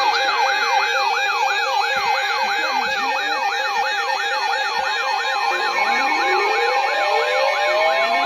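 Several electronic siren sounds layered together: a fast yelp sweeping up and down about three times a second over a steady tone and a two-note hi-lo pattern, with slow wail sweeps starting to rise near the end.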